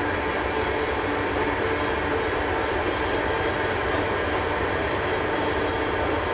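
Union Pacific grain train rolling past: a steady, even rumble of wheels on rail with a steady mechanical drone, no single loud event.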